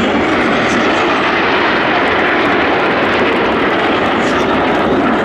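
Formation of Aermacchi MB-339 PAN jet trainers flying overhead, their Rolls-Royce Viper turbojets making a steady, loud rushing jet noise.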